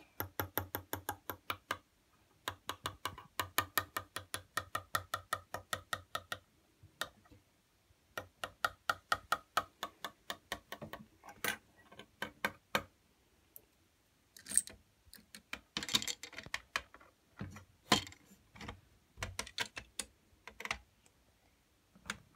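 Rapid runs of light plastic clicks and taps, several a second, as Lego minifigures and pieces are handled on the baseplates, with a short plastic rustle about two-thirds through.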